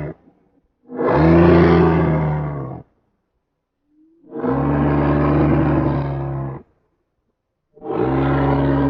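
Rhinorex dinosaur toy playing its recorded roar sound effects: the end of one roar at the start, then three separate roars of about two seconds each, with silence between.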